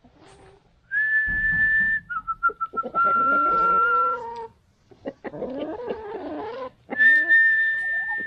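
Whistled call for summoning chickens: a long steady high note, a few quick short lower notes, then a long lower note, with the high note coming again near the end. Hens cluck in between.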